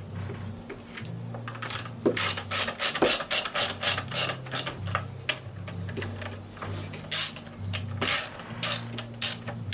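Socket ratchet wrench clicking as it turns the chainsaw's bar-cover nuts, a quick run of sharp clicks, about four or five a second, starting about a second and a half in. A steady low hum sits underneath.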